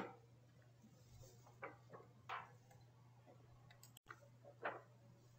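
Near silence: room tone with a steady low hum, a sharp click right at the start and a few faint scattered ticks.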